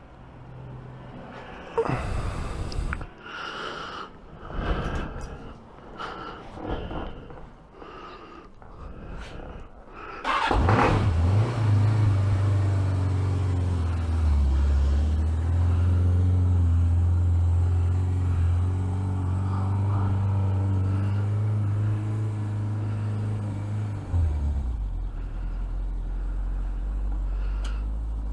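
For about ten seconds, irregular rustling and knocking close to the microphone. Then a Suzuki GSX750 motorcycle's four-cylinder engine starts and idles steadily, and about 24 seconds in the idle drops to a lower note.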